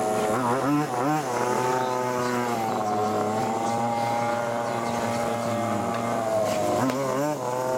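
A large-scale RC off-road buggy's small two-stroke petrol engine running at a steady idle, with quick throttle blips that rev it up and drop back, once early and again near the end.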